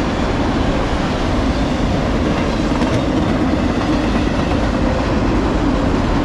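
Empty autorack freight cars rolling past at speed: a steady, loud rumble of steel wheels on rail.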